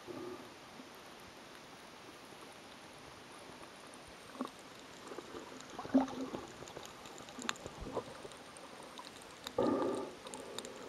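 Underwater sound on a coral reef: a faint steady hiss with scattered sharp clicks and a few muffled thumps, the loudest a short dull burst near the end.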